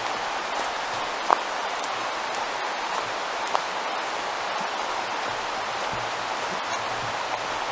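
Steady rushing of a waterfall, an even hiss of falling water. A sharp click comes about a second in and a fainter one about three and a half seconds in.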